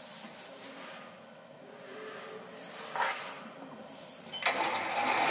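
A few faint knocks, then about four and a half seconds in a Sieg SC4 mini lathe starts up and spins up, running with a steady mechanical sound.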